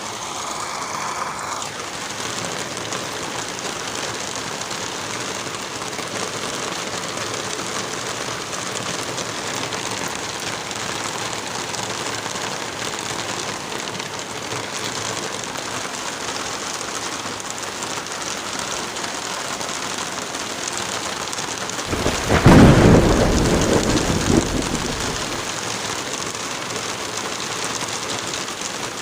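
Steady heavy rain, with one loud rumble of thunder breaking in about three-quarters of the way through and dying away over about three seconds.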